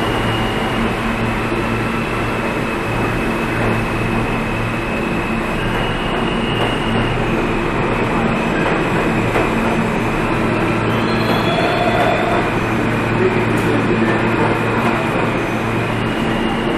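New York City Subway R160A train pulling out of the station: steady motor and wheel noise, with a few faint high-pitched tones drifting in and out above it.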